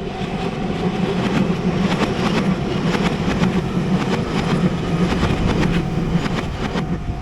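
A train passing, a steady rumble with rapid clicking of wheels over the rails, building over about the first second.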